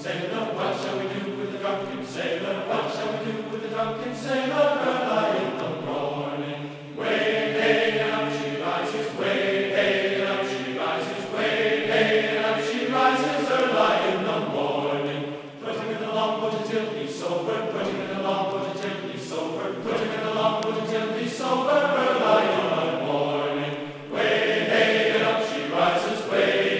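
Background choral music: voices chanting together in long sustained phrases.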